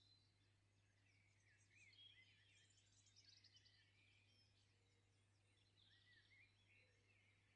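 Near silence, with faint birds chirping and trilling in the background and a steady low electrical hum underneath.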